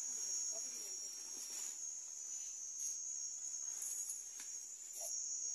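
Steady high-pitched chirring of insects, with a few faint clicks in the second half from a knife cutting ripe banana hands off the stalk.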